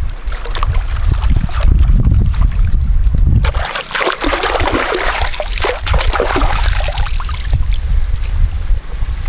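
Water splashing and sloshing as a bundle of taro stalks is swished and rinsed in a shallow stream, starting a few seconds in and lasting about four seconds. Wind rumbles on the microphone before and after the splashing.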